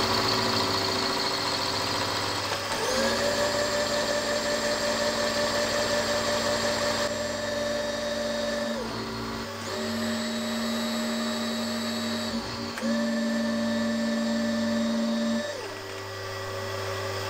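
Milling machine's 12 mm end mill cutting 6082-T6 aluminium. Its motor whine rises in pitch three times and falls back again, with steady machine running in between.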